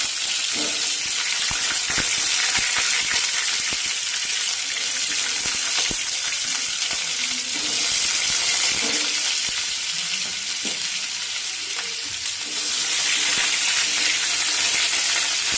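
Potato pieces sizzling as they fry in hot oil in a nonstick pan: a steady high hiss, with a few knocks as more pieces are dropped in and a spatula turns them near the end.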